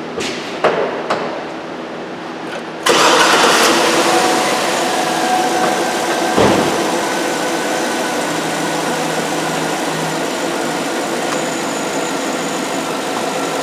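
A few sharp clicks, then about three seconds in the 6.2-litre V8 of a 2008 GMC Sierra Denali starts and settles into a steady idle, running only on pressurized fuel-injector cleaner with its fuel pump disconnected. There is one brief knock a few seconds after it starts.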